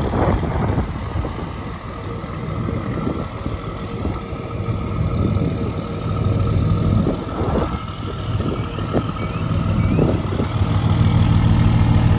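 An engine running steadily at idle, with a few short knocks over it.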